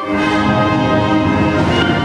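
Concert band of brass and woodwinds playing sustained chords; a new, fuller chord begins right at the start, with low instruments joining underneath.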